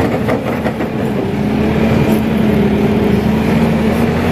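Kato crawler excavator's diesel engine and hydraulics running under load as the bucket digs into and lifts a load of soil, heard from the operator's cab. A steady hum grows stronger about two seconds in.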